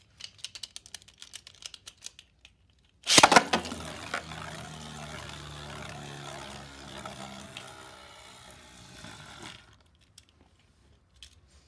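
A Caynox C3 Beyblade top spinning on a plastic stadium floor: light scattered clicks at first, then a loud rasp about three seconds in followed by a steady whirring for about six seconds that stops near the end.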